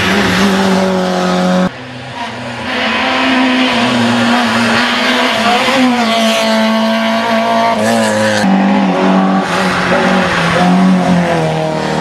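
Rally car engines running hard at high revs as the hatchbacks drive through on a tarmac stage, the pitch rising with each rev. The sound cuts abruptly twice, about two seconds in and again past the middle, as one car's pass gives way to the next.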